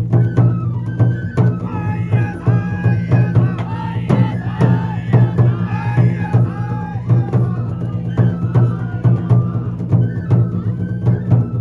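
Japanese shishimai (lion dance) music: drums struck in a steady, quick rhythm under a high flute melody that slides between notes.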